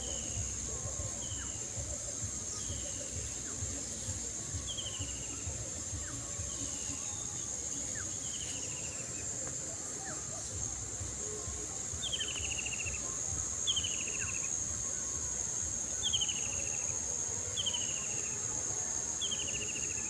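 Insects trilling steadily in a high, unbroken drone, with a short falling buzzy call repeating every second or two that gets louder about twelve seconds in, over a low rumble.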